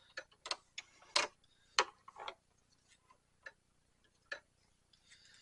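Irregular sharp clicks and taps from handling at the workbench: about a half-dozen in the first two and a half seconds, then a few faint ticks.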